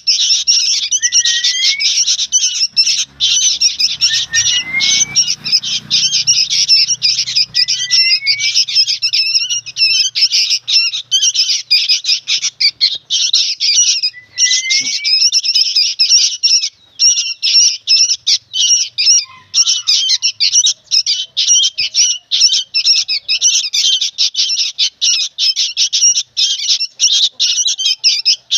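Young sooty-headed bulbuls (kutilang) calling noisily: a rapid, unbroken chatter of high-pitched squawks, with short rising notes every second or two in the first half.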